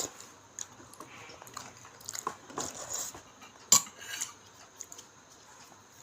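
Scattered light clinks and taps of a plate and eating utensils, with one sharper click a little before the four-second mark.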